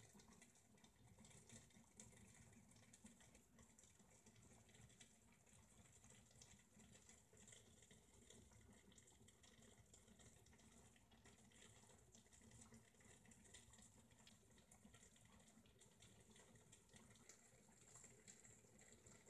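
Near silence: faint steady hiss and room tone.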